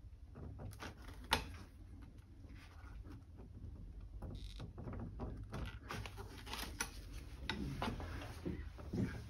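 Hand scraper prying and scraping sticky Stopaq visco-elastic coating off a steel pipe, with soft scrapes and irregular small clicks, and one sharper click about a second in.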